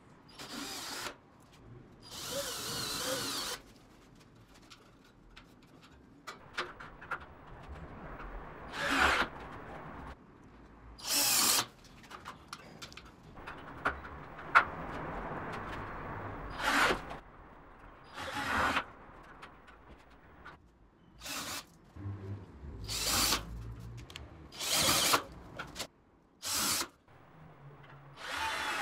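Cordless drill-driver driving screws into steel drywall framing and hangers, in about a dozen short bursts with pauses between, the longest run about two seconds in.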